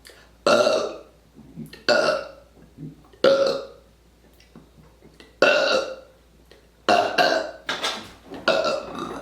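A person burping loudly on command, about seven short burps in a row. They come roughly a second apart, with a longer pause in the middle.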